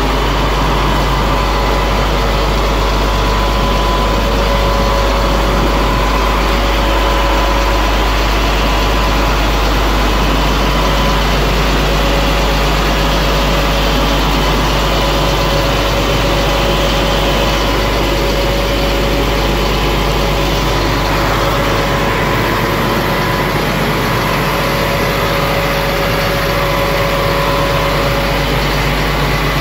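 The engine of a C6500 medium-duty flatbed tow truck idling steadily.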